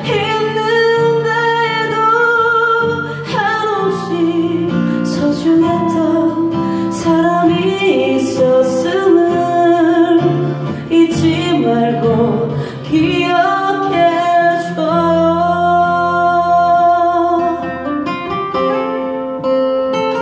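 Live acoustic song: two acoustic guitars playing together while a woman sings a sustained melody over them. Near the end the voice stops and the guitars carry on alone.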